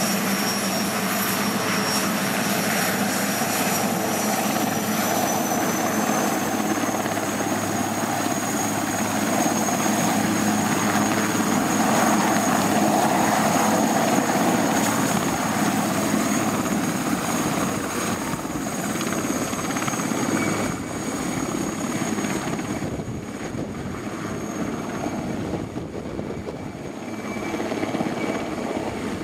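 Aérospatiale Puma HC.1 helicopter lifting off and hovering: the twin turboshaft engines run at take-off power, with a high turbine whine that creeps up in pitch a few seconds in over the dense rotor and downwash noise. It is loudest about halfway through and a little quieter in the last third as the helicopter climbs away.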